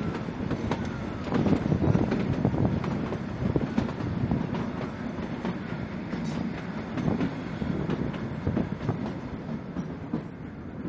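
Carriage of the narrow-gauge Kalka–Shimla toy train running along the track, heard from on board: a steady rumble of wheels on rail with irregular knocking and rattling. It grows a little quieter near the end.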